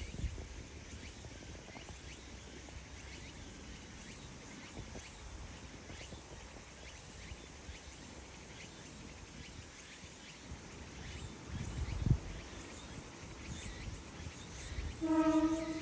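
Outdoor ambience with faint, high insect chirps repeating about once a second and a low thump about twelve seconds in. Near the end a short horn blast with a clear pitch sounds for about half a second.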